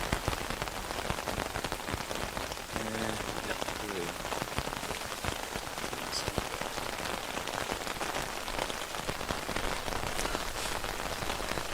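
Rain falling on the tent: a steady hiss with many separate drop taps on the fabric, heard from inside.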